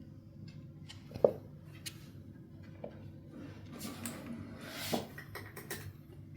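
Kittens scrambling and wrestling: scattered light taps, knocks and rubbing from paws and bodies, with one sharp, slightly ringing knock about a second in and a short rustle around the fifth second.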